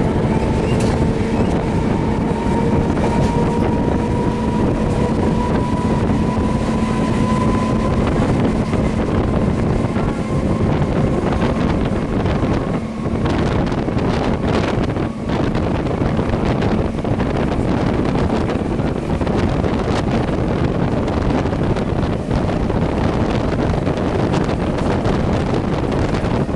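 Running noise of an EMU local train heard from its open doorway while under way, with wind buffeting the microphone. A motor whine climbs slightly in pitch over the first eight seconds or so and then fades into the steady rumble.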